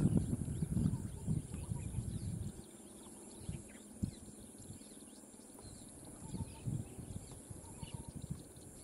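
Open-air ambience: irregular low rumbles and knocks, strongest in the first two and a half seconds and then only a few single knocks, over a steady high hiss with faint chirps.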